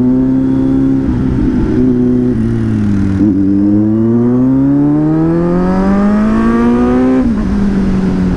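Kawasaki Z900's inline-four engine accelerating hard, heard from the rider's seat. The engine note dips about three seconds in, then climbs steadily for about four seconds before falling sharply near the end.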